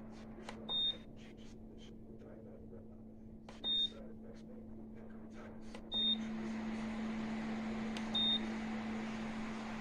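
PELONIS tower fan's control panel beeping four times, short high beeps a few seconds apart, among light clicks. After the third beep the fan comes up to a steady air noise over a low hum.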